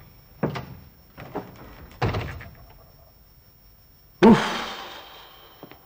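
A wooden door bumps and thuds shut in a few knocks. Then, about four seconds in, a doorbell rings loudly and its ring dies away.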